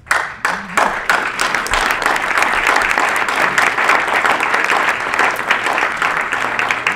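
Audience applauding: a dense patter of many hands clapping that starts suddenly and keeps on steadily.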